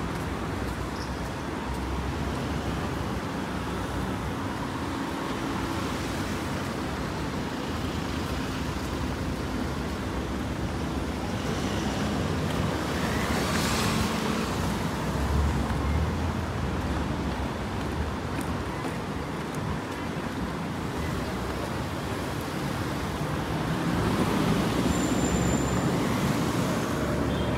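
City street traffic: a steady hum of traffic with cars driving past close by, one about halfway through and a louder one near the end.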